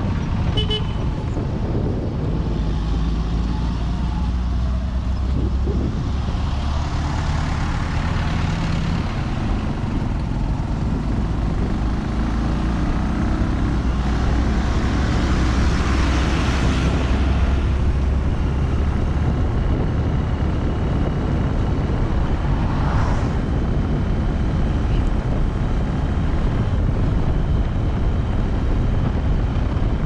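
Steady engine and road noise from a vehicle travelling along a highway. Other vehicles pass, swelling louder twice, most strongly while a large truck is overtaken. A brief horn toot sounds near the start.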